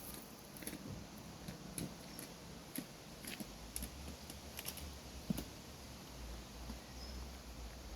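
Faint scattered clicks and light taps, one sharper tick about five seconds in, over a low rumble that swells partway through.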